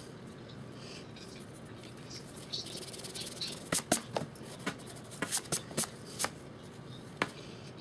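Hand rubbing and sweeping across the paper of a spiral sketchpad, followed in the second half by a run of about eight sharp taps and clicks.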